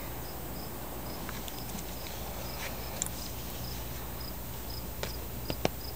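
A cricket chirping faintly, short high chirps about three a second, over a steady low hum, with a few sharp clicks near the end.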